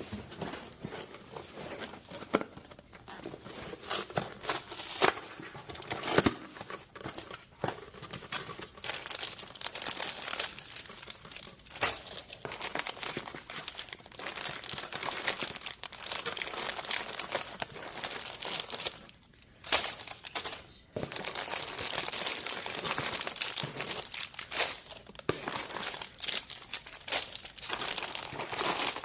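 Snack chip bags crinkling as they are handled and loaded into a vending machine, with many sharp crackles and clicks; the crinkling drops away briefly about two-thirds of the way through.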